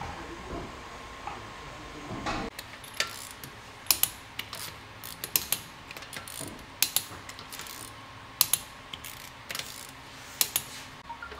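Hand ratchet wrench clicking in short, irregular runs of sharp clicks as the wheel bolts are run in and tightened, starting about two and a half seconds in.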